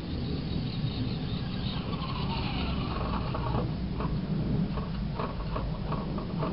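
Tamiya Blackfoot RC monster truck's electric motor whining, rising in pitch about two seconds in. It is followed by a run of light clicks and knocks, over a steady low rumble.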